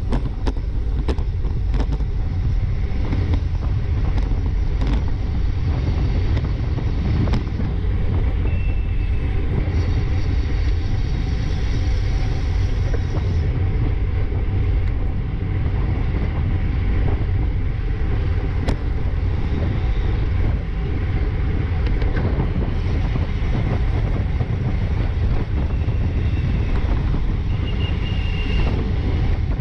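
Wind rushing over the microphone of a bicycle-mounted action camera at about 22 mph, with the steady low rumble of road-bike tyres on asphalt in a riding pack. A few sharp clicks near the start and brief high squeaks near the end.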